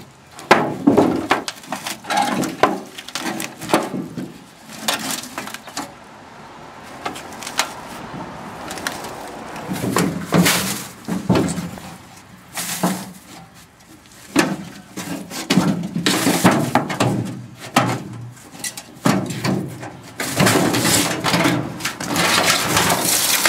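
Irregular knocks, clanks and scrapes of tools and metal parts as a hot water heater's cast aluminum and brass fittings are worked apart for scrap, with a busier stretch of clattering near the end.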